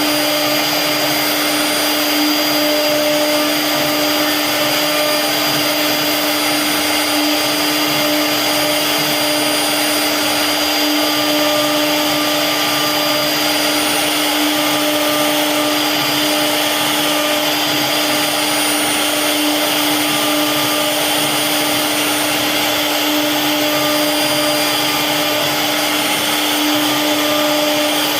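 CNC wood router spindle running steadily with a constant whine over a dense rushing noise, carving wood.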